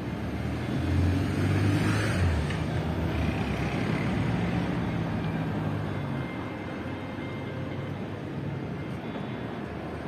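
Motor vehicle engine passing close by, loudest about a second in and then fading away over the next few seconds.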